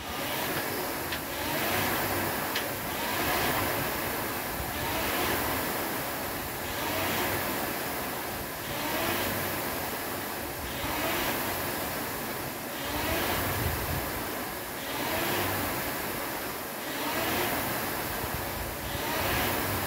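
Air rowing machine's fan flywheel whooshing with each stroke, swelling and fading about once every two seconds as the rower pulls hard and steadily.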